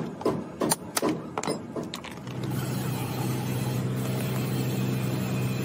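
A quick run of sharp metal strikes on a chisel driven into the case of an old Exide lead-acid battery to cut it open. About two seconds in, they give way to a steady low mechanical hum.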